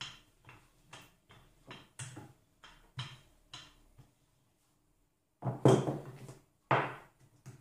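Wooden rolling pin working dough on a wooden board, with light knocks about twice a second. Near the end comes a louder wooden clatter as the pin is set down on the board, then one more knock.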